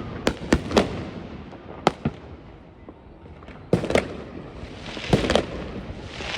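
Fireworks going off: scattered sharp bangs, three in the first second and two more around two seconds in. After a lull, clusters of bangs with crackling come near four and five seconds in.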